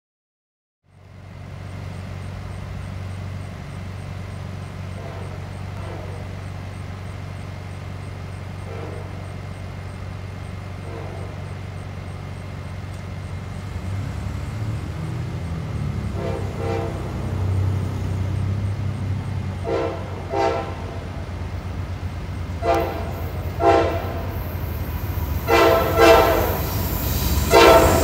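Norfolk Southern freight locomotive's air horn sounding a series of blasts for a grade crossing, faint at first and much louder from about halfway through as the train approaches, over a steady low train rumble that grows louder too.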